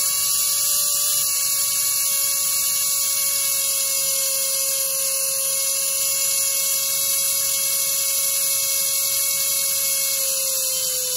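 Small yellow plastic DC gear motor running steadily off a bench power board: a steady high whine from the motor over a gear and brush hiss, dipping slightly in pitch near the end as the motor slows.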